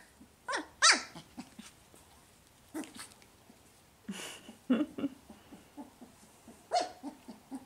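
Puppies yipping and whining as they play-wrestle: a few short high yelps that slide sharply down in pitch near the start and again near the end, with lower short grunts and whines in between.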